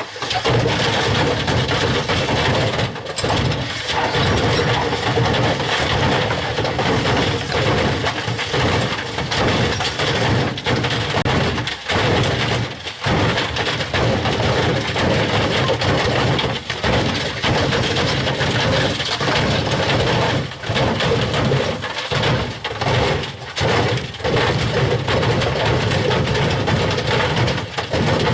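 White Knight tumble dryer running with a brick and two hammers tumbling in its drum: a loud, continuous clattering and banging of brick and metal against the drum. It starts abruptly.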